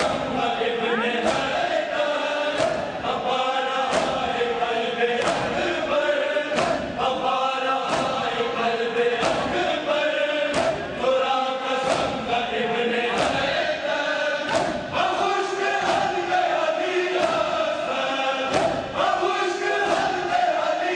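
A crowd of men chanting a noha in unison, with a synchronized slap of hands on bare chests about every second and a third. This is Shia matam, rhythmic chest-beating in Muharram mourning.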